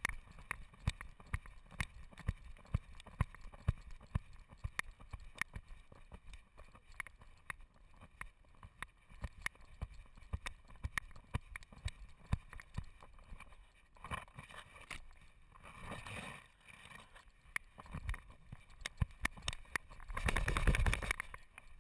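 A dog's footsteps on a gravel path, picked up through a camera strapped to its chest as a steady run of knocks, about two a second. Near the end a louder rushing, rustling burst covers the steps.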